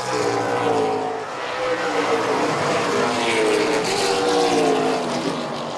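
A pack of late model stock cars racing, several V8 engines running hard together, their pitches rising and falling as they speed up and lift through the turns.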